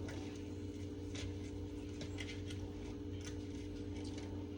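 Quiet eating sounds: a few faint, scattered clicks as food is tasted from a fork, over a steady low electrical hum.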